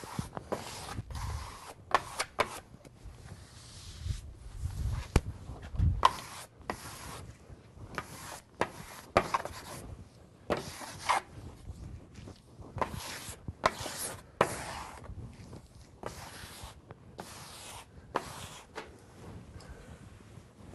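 A damp sponge wipes over Mylar-laminated vinyl wallcovering in a long series of short, brisk rubbing strokes. A few dull thumps come in the first six seconds.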